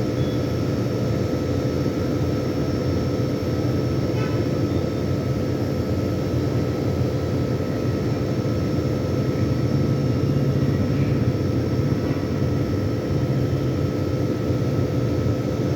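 Air conditioner running with a steady mechanical hum and fan noise, with a couple of faint steady whining tones over it.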